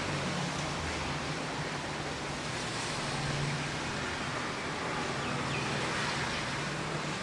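Light drizzle falling as a steady, even hiss, with a faint low hum underneath.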